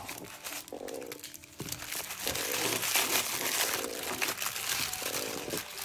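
Plastic packaging being crumpled and crinkled by hand, growing busier and louder about two seconds in.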